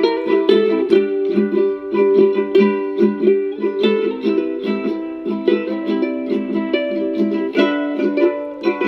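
A song with quick plucked-string notes played at full volume through a JBL Charge 4 portable Bluetooth speaker, with little deep bass.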